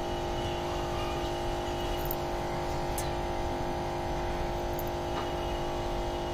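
Steady electrical hum, several fixed tones held unchanged, with a few faint ticks from a marker writing on a whiteboard.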